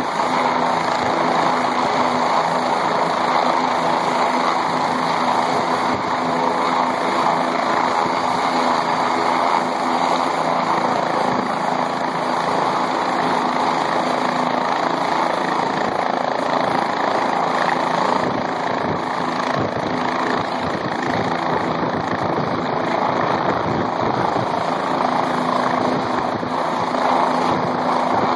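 Medical helicopter running at flying speed on the pad: a steady, loud din of turbine and rotor blades. Right at the end it begins to lift off.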